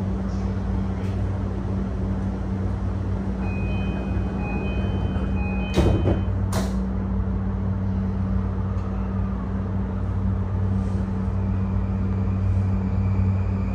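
Inside a JR East E235-1000 series train standing at a station: a steady low hum from the car's equipment, a short run of high beeps a few seconds in, then two short sharp hisses of air about six seconds in. Near the end a faint high tone sets in as the Mitsubishi full-SiC VVVF inverter starts moving the train.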